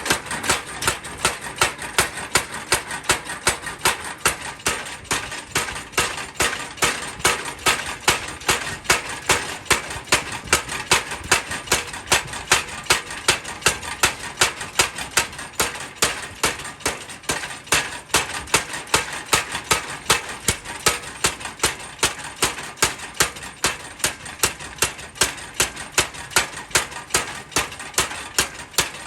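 Power hammer striking a knife blank at a steady, even pace of about two to three blows a second, over a continuous machine hum.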